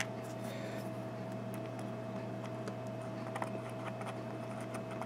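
Steady low electrical hum with a faint high tone, and a few light clicks as the small pins of a disassembled padlock cylinder are handled.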